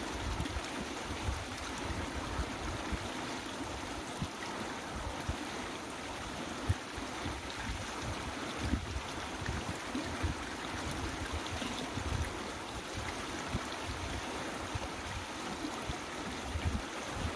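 Steady rushing of flowing water, with an uneven low rumble underneath.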